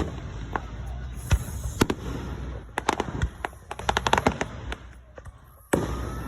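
Fireworks going off: scattered sharp bangs, then a dense run of crackling pops about three seconds in. A fresh loud burst comes near the end.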